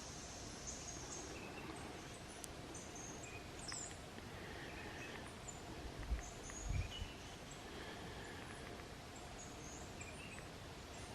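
Faint woodland ambience with birds chirping in short, scattered calls over a steady hiss, and a couple of brief low bumps just past the middle.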